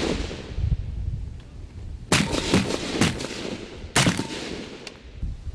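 Rifles firing on a range during battle-sight zeroing: about four sharp shots from the firing line, starting about two seconds in and spaced half a second to a second apart, each with a ringing echo.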